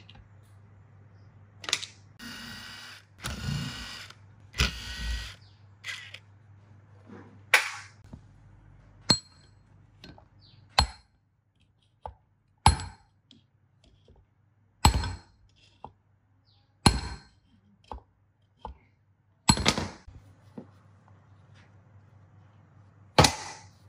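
Sharp metal-on-metal knocks, about one every two seconds, each with a brief ring, as a steel rod is struck against the cast end cover of an old electric pump motor to knock the cover loose. Before the knocks come a few seconds of grating scraping as the fan end is pried at with a flat bar.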